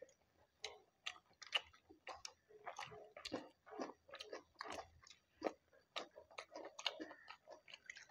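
Faint, close-up chewing and mouth sounds of people eating: a steady run of small wet smacks and clicks, several a second.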